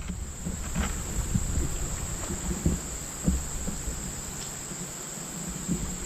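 Steady high-pitched insect chorus, such as crickets or cicadas, over the noise of moving creek water, with a few low knocks and splashes from the kayak.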